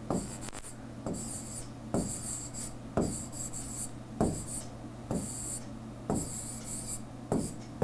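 A stylus tapping and scratching on a tablet screen as a word is handwritten, in short strokes about once a second, over a low steady hum.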